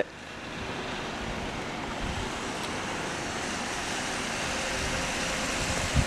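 Front-end loader's diesel engine running steadily far off as it clears snow, heard as an even, steady noise.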